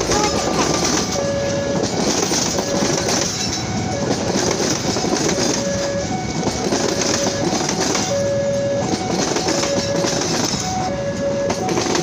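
Passenger train carriages rolling past close by: a steady rumble and clatter of wheels on the rails. Short steady tones repeat roughly once a second over it.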